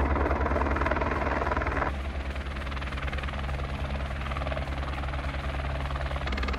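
Helicopter flying low overhead, its rotor giving a fast, steady chop over the engine. About two seconds in the sound drops and thins to a quieter, steady running.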